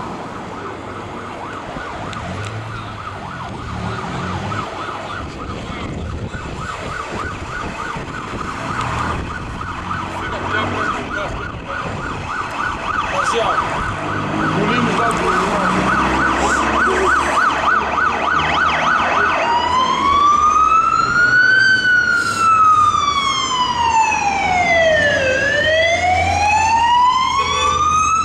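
Siren of a Dennis Dart Command Support Unit fire truck on an emergency run, growing louder as it approaches. It sounds a fast warbling yelp, then about two-thirds of the way in switches to a slow wail that rises and falls every few seconds, over engine and traffic rumble.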